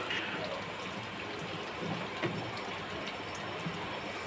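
Wet squelching of chicken pieces being mixed by hand through a thick yogurt-and-spice marinade in a steel bowl, with a couple of soft knocks about two seconds in.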